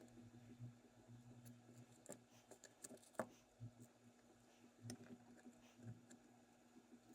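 Near silence: faint scattered ticks and taps of small hand tools working on a circuit board, over a low steady hum.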